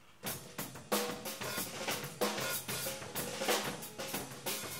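Gretsch drum kits being played: fast snare and tom strokes with bass drum and crashing cymbals, starting a moment in.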